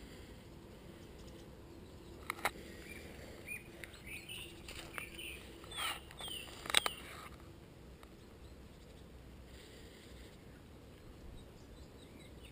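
Small birds chirping in short calls, most of them between about two and a half and seven seconds in, with a couple of sharp clicks among them.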